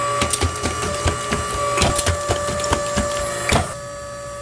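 Cookie-cutter forming machine at work: its metal jaws clatter and knock in quick, irregular strokes as they bend a metal strip around the form, over a steady hum and whine. The knocking stops about three and a half seconds in, leaving the hum.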